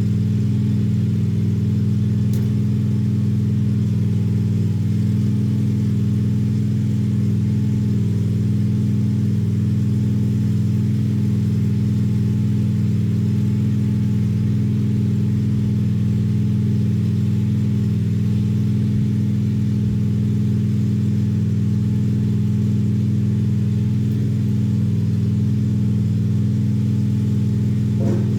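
Lawn mower engine running steadily under load, a constant drone with no change in speed.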